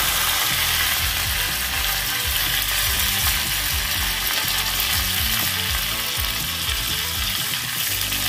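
Hot oil sizzling in a small tempering pan as curry leaves and chopped coriander fry with mustard seeds and cumin: a steady hiss with scattered crackles and pops.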